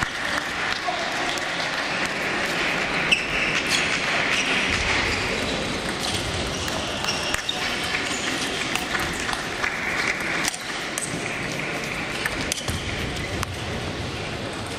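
Table tennis balls clicking off bats and tables, scattered irregular ticks from rallies on the match table and neighbouring tables. Under them runs a steady hubbub of voices and hall noise.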